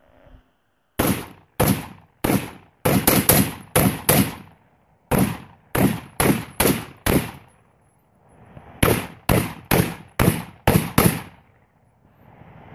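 Colt AR-15 A2 rifle firing about nineteen shots in quick succession, in two strings with a pause of about a second and a half in the middle. The shots come a quarter to half a second apart at an uneven pace.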